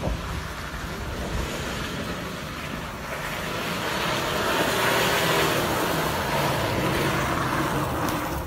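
Volkswagen Amarok V6 diesel pickup driving hard across grass, engine revving and tyres spinning and flinging dirt, growing louder to its peak about halfway through as it passes close.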